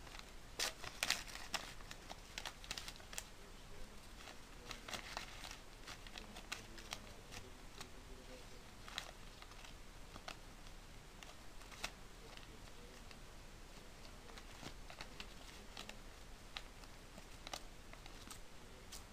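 Paper crinkling and tearing as a small dog chews and tugs at a sheet held to its mouth, in scattered crackles and small rips, loudest about a second in.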